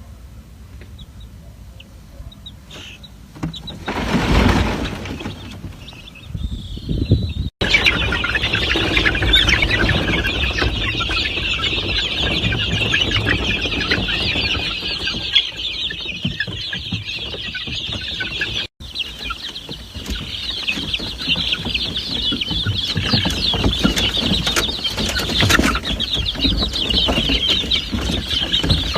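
A flock of chickens clucking and calling, many birds at once in a dense chatter, with a brief loud noise about four seconds in.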